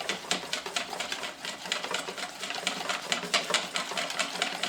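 A whisk beating a flour-and-soda batter in a bowl, clicking against the bowl in a quick, steady rhythm.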